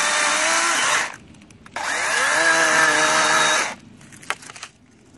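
DeWalt 20V XR brushless 12-inch battery chainsaw running on a log with a steady whine that stops about a second in. About two seconds in it spins up again with a rising whine, runs for a couple of seconds and cuts off. Light knocks and crackles of the log being handled follow.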